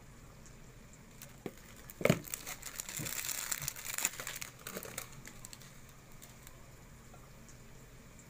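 Plastic packaging being crinkled and handled for a couple of seconds, after a single sharp knock about two seconds in.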